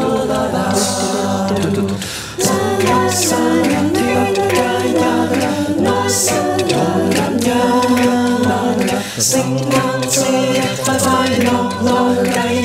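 A cappella choir singing in several-part harmony, with no instruments.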